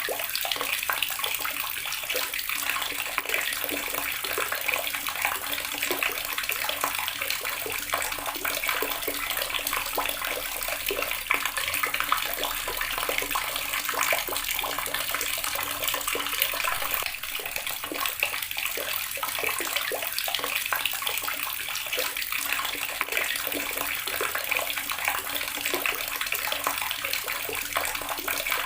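Water tap running steadily, its stream splashing into a basin or tub below.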